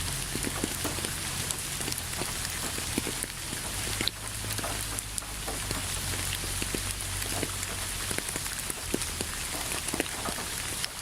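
Steady rain falling, with many individual drops tapping sharply close by over an even hiss, and a low steady rumble underneath.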